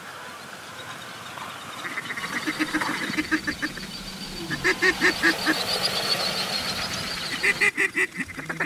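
Waterfowl calling: quick runs of duck quacks and goose honks, about five to a second, swelling about five seconds in and again near the end.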